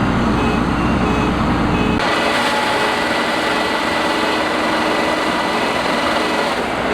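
Rice combine harvester running steadily, its engine and threshing machinery making a continuous mechanical noise. About two seconds in, the sound changes abruptly: the deep rumble falls away, leaving a brighter hiss with a thin steady whine.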